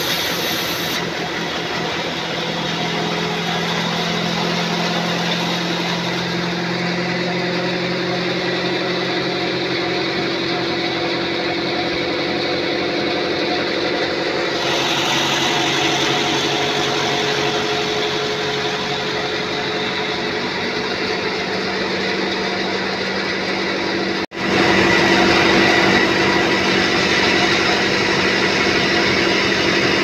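Sawmill log band saw running and cutting through a teak log: a steady mechanical drone with hiss. It breaks off for an instant about 24 seconds in and comes back louder.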